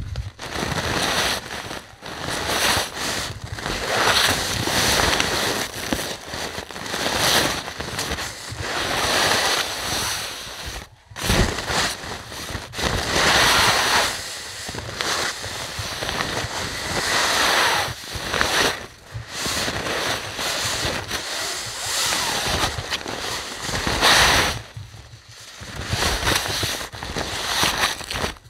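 Gusty wind rushing over the microphone, swelling and fading every second or two with a crackling edge, as blown snow swirls past.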